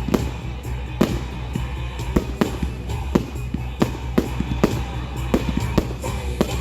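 Firework display: a string of sharp bangs and cracks, one to three a second, with music playing underneath.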